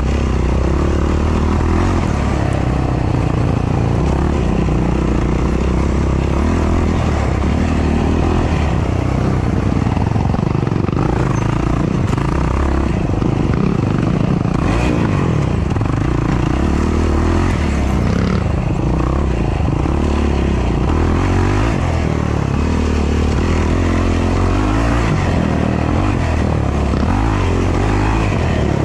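Yamaha YFZ450R quad's single-cylinder four-stroke engine running hard in race riding, revving up and dropping back again and again as the throttle is worked.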